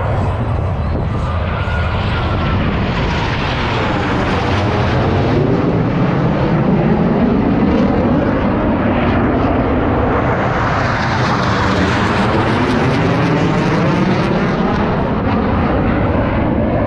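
Blue Angels jet aircraft flying past in a steady, loud roar, with a sweeping, phasing whoosh as they pass. The sound swells about seven seconds in and again, with a brighter hiss, around twelve seconds in.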